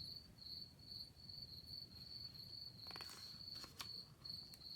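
Faint cricket chirping, a steady high chirp repeated about three times a second. A few soft clicks and a brief rustle come about three seconds in.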